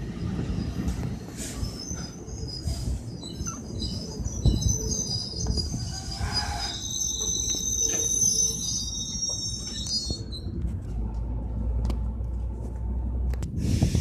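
NJ Transit commuter train cars passing close by, with a steady rumble of wheels on the rails. High-pitched metallic wheel squeal runs over it from about a second in and stops about ten seconds in.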